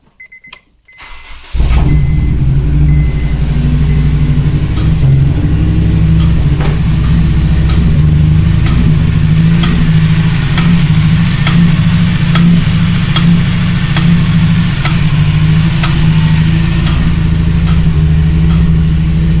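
Honda Civic Si EP3's 2.0-litre K20 four-cylinder starting about a second and a half in, then running rough with a sharp tick roughly once a second. The owner takes it for a bent valve, cylinder 2 hitting its intake valves.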